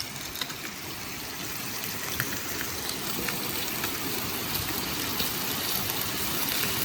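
Steady rushing of a flowing stream, with a few faint clicks over it.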